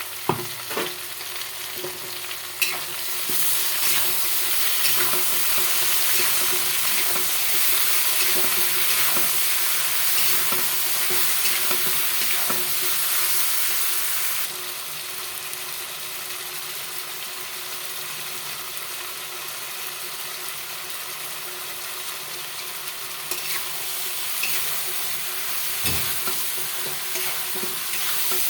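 Food sizzling in hot oil in a pan while it is stirred, with a few sharp clinks of the spatula against the pan. The sizzle gets louder a few seconds in and eases off about halfway through.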